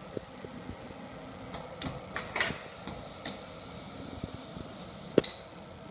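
Festo MPS modular production stations at work: pneumatic cylinders and valves giving irregular clicks and knocks over a steady background hum, the sharpest knock about five seconds in.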